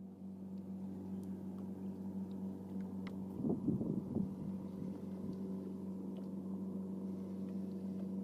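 A boat engine running steadily with a low, even hum, with a brief louder rough noise about three and a half seconds in.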